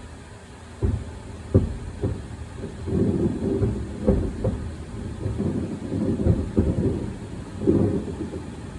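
Aerial fireworks exploding: a string of booms, the first about a second in, then rolling rumble and crackle as more shells burst one after another.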